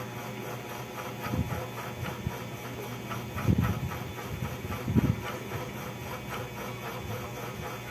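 Hands massaging a creamy keratin hair mask through wet hair: quick repeated wet rubbing and squelching, with a few dull thumps about one and a half, three and a half and five seconds in.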